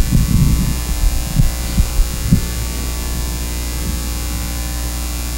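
Steady electrical mains hum in the audio feed, with a few soft low thumps in the first two or three seconds.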